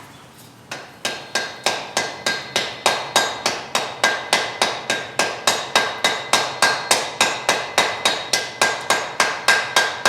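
Hand hammer striking a welding-heat mild-steel bundle on the anvil in a steady run of blows, about three a second, each with a short metallic ring: setting a forge weld. The hammering starts about a second in.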